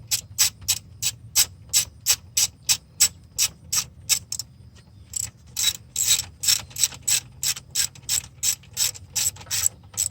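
Hand ratchet wrench clicking in quick, regular strokes, about three a second, as the alternator mounting bolts are run down snug; a brief pause about four and a half seconds in, then the clicking resumes.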